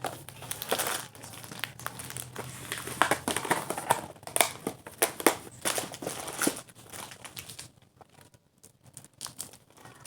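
Crinkling and crackling from small toys or their packaging being handled, many short crackles in quick succession that die down about eight seconds in.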